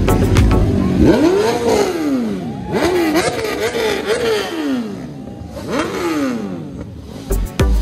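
A high-revving vehicle engine being blipped repeatedly, its pitch climbing and dropping with each rev. There is a long rev about a second in, a quick string of blips around three to four seconds, and one more rev near six seconds. Music with a beat plays at the start and comes back near the end.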